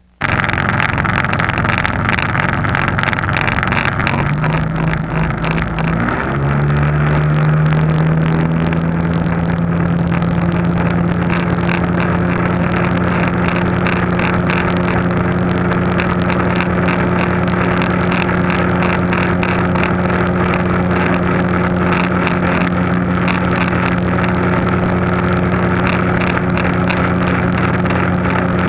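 Jon boat's outboard motor running underway, rising in pitch about four to seven seconds in as the throttle opens, then holding a steady pitch over a constant rush of wind and water noise.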